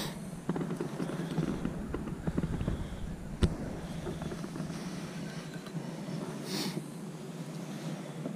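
Handling noise as a small yellow perch is reeled in and lifted on a light rod with a spincast reel: crackly rustling throughout, one sharp click about three and a half seconds in, and a brief rustle near the end.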